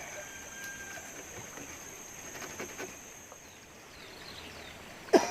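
Outdoor ambience with a steady high-pitched drone and faint bird chirps. A sudden loud sound with a falling pitch comes right at the end.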